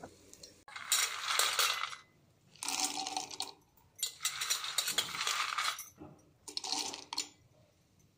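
Roasted peanuts poured into a stainless steel mixer-grinder jar, clattering against the metal in four pours of one to two seconds each.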